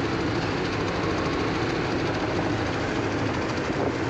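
Steady engine and road noise of a Suzuki taxi, heard from inside its cabin while it drives along.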